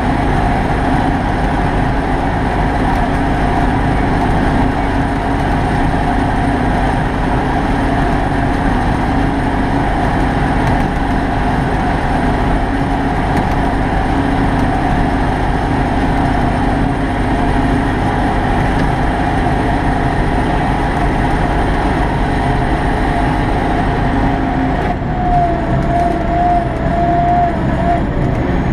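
Kirovets K-700A tractor's V8 diesel engine running steadily under load while pulling a disc harrow, heard from inside the cab. Near the end the engine note changes and a wavering whine comes in for a few seconds.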